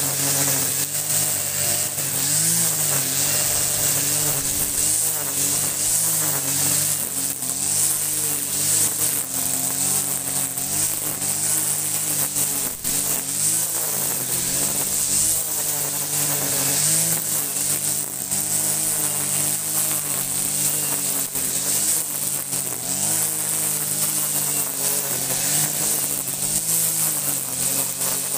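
Kawasaki TJ45 two-stroke brush cutter running at high throttle as it cuts thick overgrown grass, its engine note wavering up and down as the load on the cutting head changes, over a steady high hiss.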